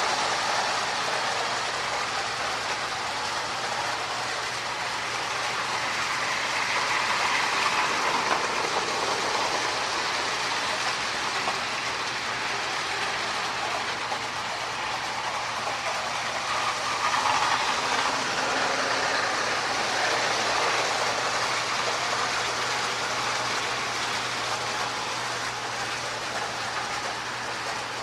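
Marx toy diesel train with power-pull motors running on its track: a steady whirr of the motor with the wheels clicking over the rail joints. The sound grows louder and fades back twice.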